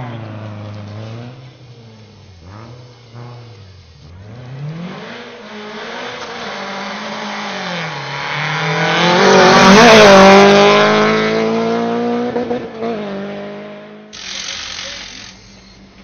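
Rally car engine on a closed tarmac stage, its revs climbing and dropping with each gear change as it approaches. It gets louder as the car comes round the bend and accelerates past, loudest about ten seconds in, then its pitch drops away as it goes by.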